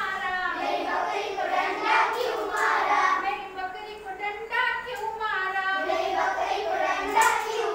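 A group of children singing an action song together, with a few hand claps.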